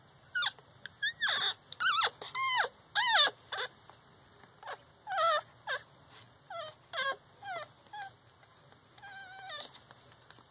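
Week-old Shihcockapoo puppies (Cocker Spaniel crossed with Shih Tzu–Toy Poodle) whimpering and squeaking: a rapid string of short high-pitched cries that thins out after about four seconds, with one longer, steadier cry near the end.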